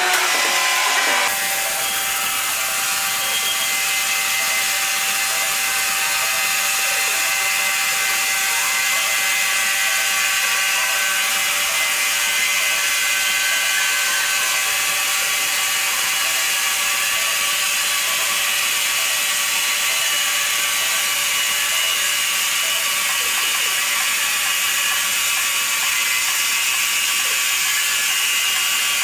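Sawmill saw machinery running steadily: an even, high mechanical noise with several steady tones that holds without change.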